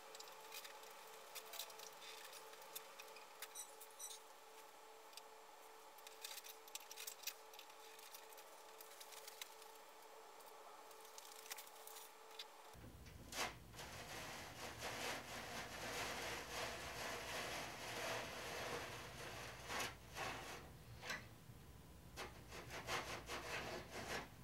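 Faint handling of hard plastic toy parts, with scattered small clicks. About halfway through, a screwdriver starts working screws out of a plastic piece, scraping and rasping with several sharper clicks.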